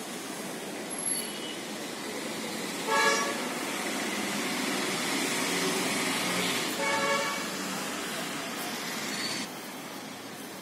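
Road traffic with vehicle horns tooting briefly twice, about three and seven seconds in. The traffic noise drops away near the end.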